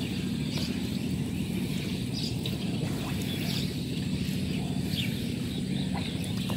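Steady low outdoor rumble, with faint small splashes and drips of water as a wet gill net is worked by hand in shallow water.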